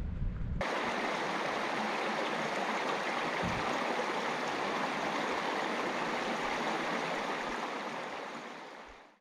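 Shallow, stony stream running over rocks: a steady rush of flowing water that starts just under a second in and fades out near the end.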